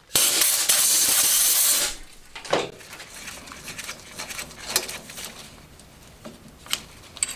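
A burst of compressed air hissing for about two seconds, blowing chips off the workpiece in the lathe. It is followed by scattered light metallic clicks and knocks as gloved hands handle the part in the chuck.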